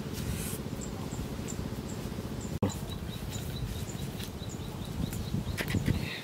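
Outdoor ambience: a steady low rumble under small, high, evenly repeated chirps from an insect or bird. The sound cuts out abruptly for an instant about two and a half seconds in, after which the chirps come faster and lower.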